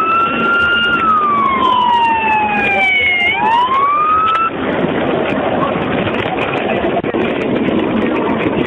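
Police car siren wailing, its pitch falling slowly and then rising again before it cuts off suddenly about four and a half seconds in, leaving a steady rushing noise.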